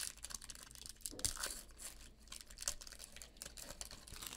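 Foil wrapper of a baseball card pack being torn open and crinkled as the cards are pulled out, an irregular run of crackling.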